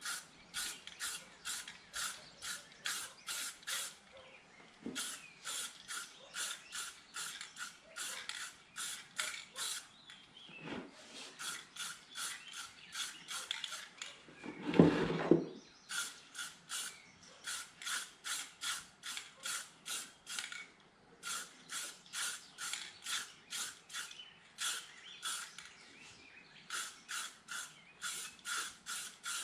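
Aerosol spray-paint can sprayed in quick short hissing bursts, about three a second with a few brief pauses, laying a light coat of green paint. A single louder thump about fifteen seconds in.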